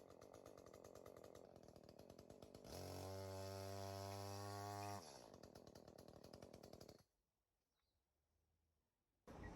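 Echo CS-310 two-stroke chainsaw idling with a fast, even putter. About three seconds in it is revved up to a steady high pitch for about two seconds, then drops back to idle. The sound cuts out completely for about two seconds near the end.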